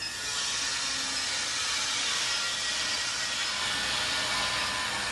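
Steady loud rushing hiss from the induction melting furnace's equipment, setting in about a quarter second in and holding even, over a faint high whine.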